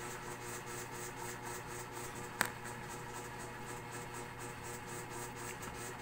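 Pencil scratching on notebook paper in short irregular strokes as a word is written, over a steady hiss and low hum. One sharp click comes about two and a half seconds in.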